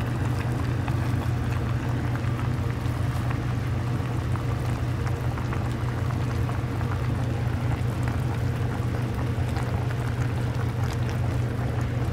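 Pot of seafood boil with vegetables bubbling on the stovetop over a steady low rumble.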